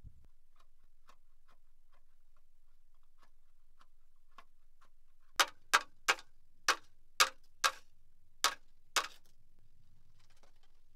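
Knife spine struck down a ferro rod, throwing sparks onto wood shavings on a shovel blade. Faint light ticks come first, then about halfway through eight sharp scrapes roughly half a second apart.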